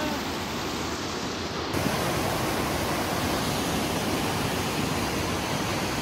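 Steady rush of white water from a small cascade of a desert river tumbling over rocks.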